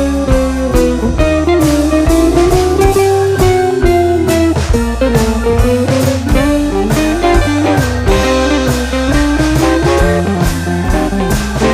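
Background music: a bluesy electric guitar playing a bending melody over bass and a steady drum beat.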